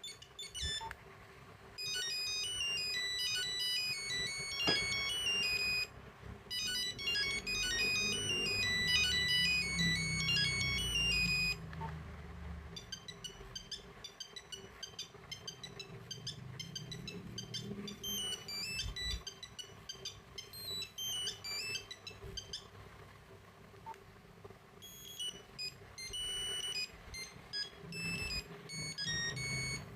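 Nokia 8250 mobile phone playing its monophonic ringtone melodies: quick runs of single beeping notes. The tune stops briefly several times and plays more quietly in the second half.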